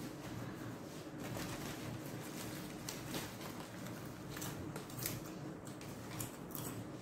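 Paper sandwich wrapper rustling and crinkling as it is handled, in scattered short crackles.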